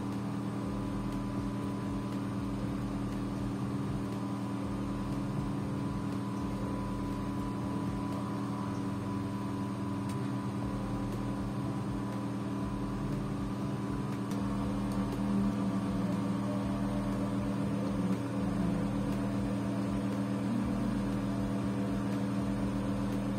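A steady droning hum made of several held low tones, unchanging throughout apart from slight wavers in the second half.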